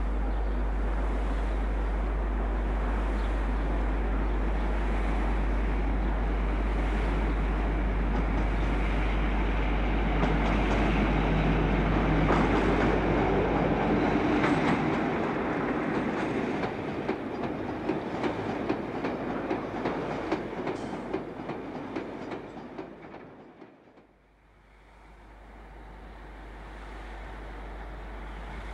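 British Rail diesel freight locomotive and its train passing close by. The engine builds to its loudest about halfway through, then the wagon wheels clatter rhythmically over the rail joints as the train fades away. Near the end it cuts abruptly to the faint sound of another train approaching.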